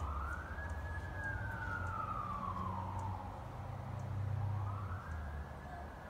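Fire truck siren wailing: its pitch rises, falls slowly over about four seconds, then rises again near the end, over a steady low rumble.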